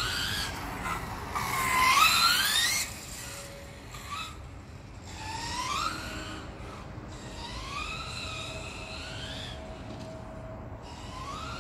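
Leopard 5692 730 kV brushless motor of an FG EVO RC car whining through repeated accelerations, the pitch rising with speed each time. The loudest run-up comes about two seconds in and cuts off sharply about a second later.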